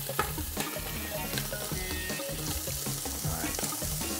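Shrimp sizzling as they fry in oil in a stainless steel stockpot, with scattered clicks of metal tongs against the pot as they are turned.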